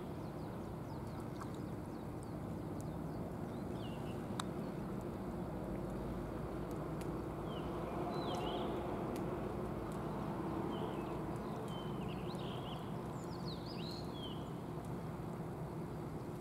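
Steady outdoor background noise with a low hum, and brief high chirps scattered through the middle, like small birds calling.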